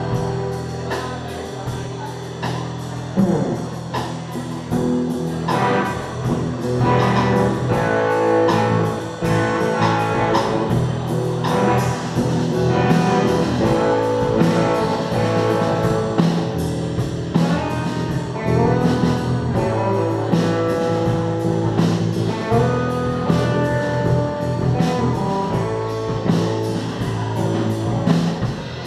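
Live cover band playing a rock song: bass and guitar over a steady beat.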